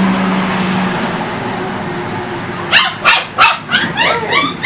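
Six-week-old Dutch Shepherd puppies yapping: a quick run of about seven short, high barks starting a little past halfway. Before the barks, a steady low hum fades out about a second in.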